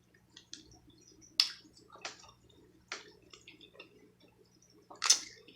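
Close-up eating sounds from a seafood boil: wet squishing and soft clicks, broken by a few sharp cracks, about four in all, as shellfish shells are broken open, with some chewing.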